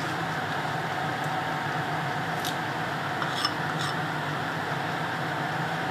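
Steady mechanical hum with a faint steady tone, like a motor or fan running, and a few faint light ticks about halfway through.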